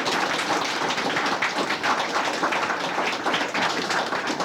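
A roomful of people applauding, many hand claps overlapping in a steady patter.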